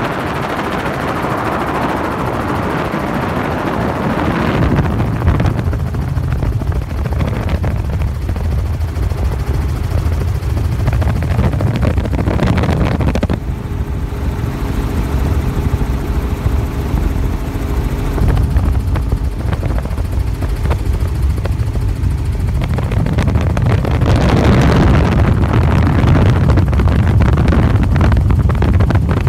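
Robinson R44 piston helicopter in flight, heard from on board: a steady rotor beat over the engine, with a rushing noise that eases in the middle and grows louder again near the end.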